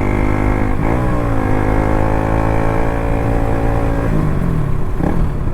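KTM RC 200's single-cylinder four-stroke engine under way. The engine note rises about a second in, holds steady, drops off around four seconds in, then climbs again near the end.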